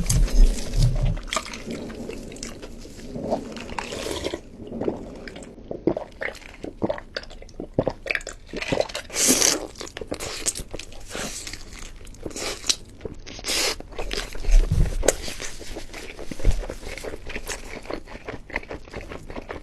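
Close-miked eating: a person biting and chewing food, with a continuous run of crunchy clicks and wet, squishy mouth sounds.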